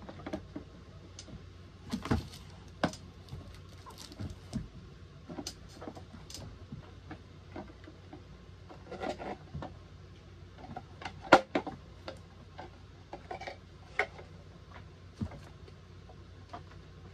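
Irregular clicks, taps and knocks of a plastic toy garbage truck being handled, its parts being moved and set down, with one sharp, loudest click a little past the middle.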